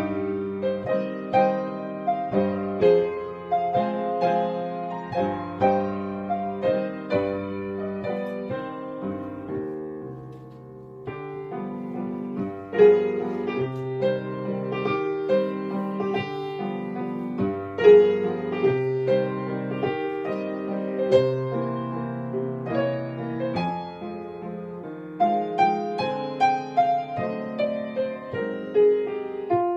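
Piano solo playing a waltz, with struck notes ringing and decaying over a moving bass line. The playing softens at a phrase end about ten seconds in, then resumes with a few strongly accented notes.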